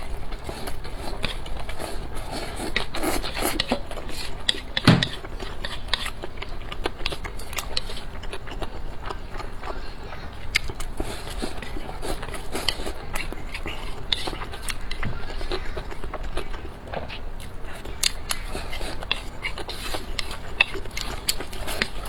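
Close-miked eating sounds: biting and chewing with many small wet clicks and crackles, and one louder knock about five seconds in.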